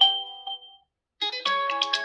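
realme GT2 Pro phone ringtones playing: one melody ends with a few ringing notes that fade out just under a second in, and after a brief silence the next ringtone starts with a quick run of bright notes.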